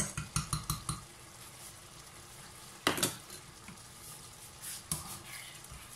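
Artichokes in tomato sauce sizzling gently in a nonstick frying pan, a faint steady hiss. In the first second a metal spoon taps quickly several times, and a single sharper knock comes about three seconds in.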